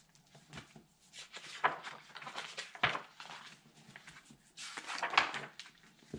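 Rustling and handling of a hardcover picture book as its cover and pages are opened, in two bouts of rustling with a sharp tap in between.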